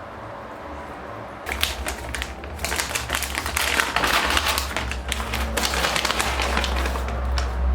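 Kitchen handling sounds: a dense run of quick clicks and rattling that starts about a second and a half in and is loudest around the middle.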